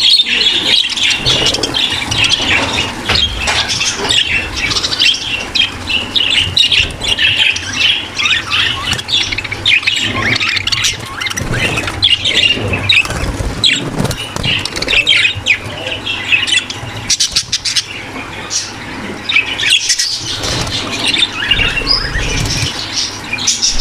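A flock of budgerigars in a breeding aviary chattering and warbling continuously, many birds calling over each other at once. This is the breeding-room flock sound used to stimulate pet budgies into breeding.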